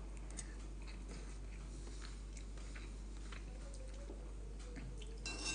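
Faint eating sounds: a person chewing soup, with a handful of small scattered clicks, over a steady low hum.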